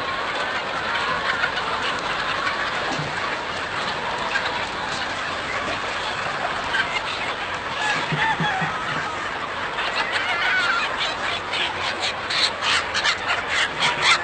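A large flock of chickens clucking and calling all at once, a dense, steady din of overlapping calls. From about ten seconds in, a rapid run of sharp clicks joins it.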